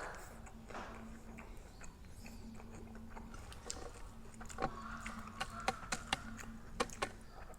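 A person chewing grilled pork close to the microphone, with a run of sharp crunching clicks in the second half, over a faint steady hum.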